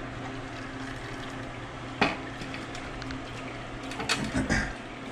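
Automatic transmission fluid dripping and trickling from a 4L60E transmission into its metal oil pan, with a sharp clank of the pan about two seconds in and a few knocks and rattles of it being handled near the end.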